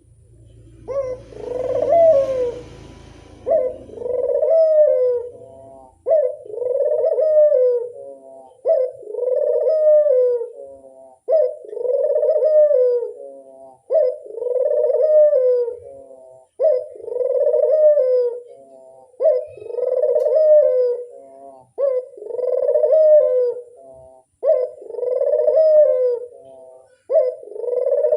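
Barbary dove (burung puter) cooing again and again, each phrase a short note followed by a long, arched coo, repeating about every two and a half seconds. A rumbling noise sits under the first few seconds.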